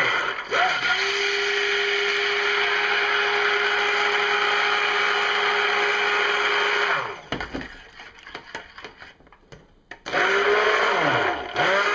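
Stick blender running in a pot of soap batter, mixing oils and lye toward trace. It runs steadily for about seven seconds, stops, then starts again about ten seconds in with a wavering pitch.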